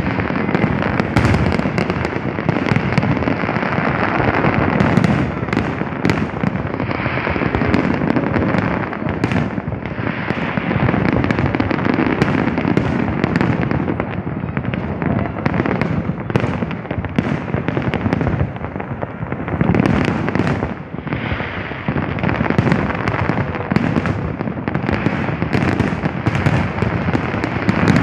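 Fireworks display: a continuous barrage of shells bursting and crackling, many bangs overlapping with hardly a gap, easing only briefly about three quarters of the way through.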